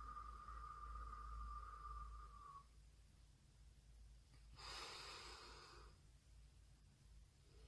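A slow out-breath through pursed lips makes a faint, steady whistle that stops about two and a half seconds in: the "pigeon coo" phase of a pigeon-breath yoga exercise. After a pause, about five seconds in, comes a breath in through the nose lasting just over a second.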